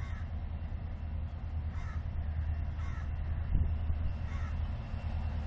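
Crows cawing, about four short caws spread a second or so apart, over a steady low rumble. A single low thump comes about three and a half seconds in.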